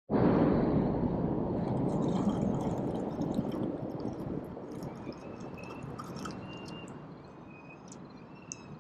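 Water sloshing and splashing, loudest as it starts and fading over a few seconds, with faint high chirps and small clicks later on.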